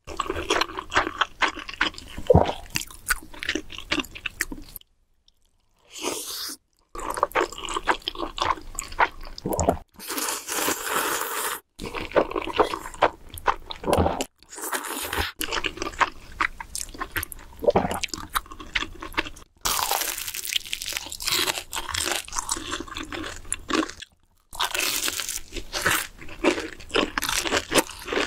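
Close-miked eating of black bean noodles (jjajangmyeon): slurping and chewing with crunching bites and wet mouth clicks, broken by a few short silent gaps.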